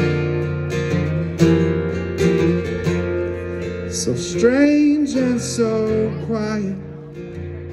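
Acoustic guitar being strummed in a steady rhythm, with a man singing a short sung phrase over it about four seconds in.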